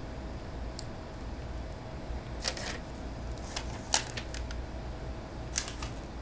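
Scattered clicks and light knocks of a tablet's plastic bezel and its freshly mounted digitizer glass being handled and set down on a wooden table, the sharpest knock about four seconds in, over a faint steady hum.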